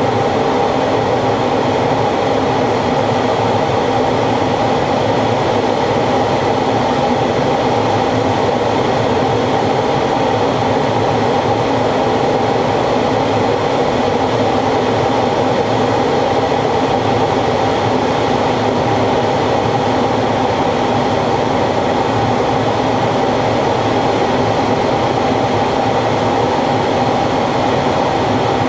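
Steady, unchanging cockpit noise of a fighter jet in flight: engine and rushing air heard through the canopy, with a constant hum.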